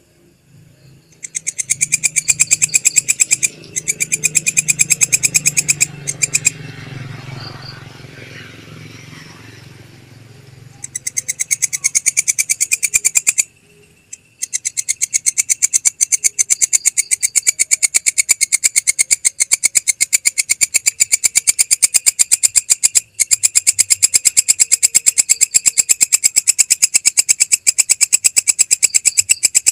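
Belalang kecek insect calling: a loud, very rapid pulsing buzz in long trains, breaking off after about five seconds, starting again near the middle and then running on steadily. A low hum sits underneath during the first half.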